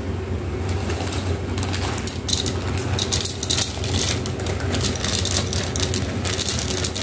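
Chocolate malt cereal balls poured into a bowl of milk, with a dense rattle of small crisp ticks starting about a second in as they land in the milk and on each other. A steady low hum runs underneath.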